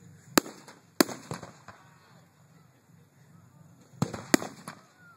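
Aerial fireworks shells bursting with sharp bangs. Two loud reports come in the first second, followed by a few fainter pops, then another cluster of bangs about four seconds in.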